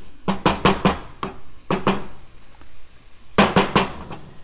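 Wooden spoon stirring onions in a pot, knocking against the pot's side and rim in quick clusters of three or four knocks, about a second into the stirring and again near the end.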